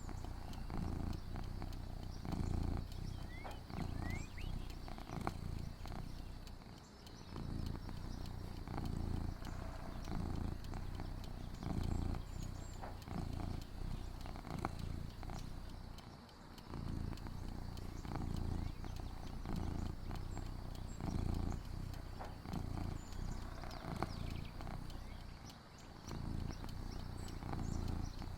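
Outdoor porch ambience: a low rumble close to the microphone that swells and fades about once a second, with a steady high hum and a few short chirps above it.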